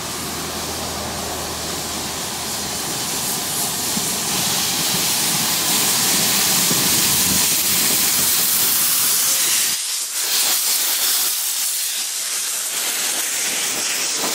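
Harz narrow-gauge Mallet steam locomotive passing close by with its cylinder drain cocks open: a steady hiss of steam that grows louder as it approaches. About ten seconds in, the low rumble drops away and a thinner hiss carries on as the coaches roll past.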